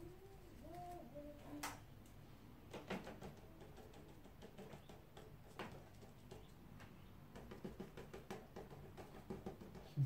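Quiet room with a few faint, sharp knocks from a paintbrush and easel being handled, and small soft ticks of brush strokes on paper near the end. A brief faint low hum sounds at the start.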